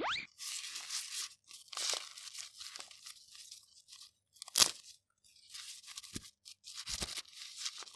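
Plastic toy packaging crinkling and tearing as it is handled and opened, in a string of short crackly scrapes, with one sharp click about halfway through. A short rising tone sounds at the very start.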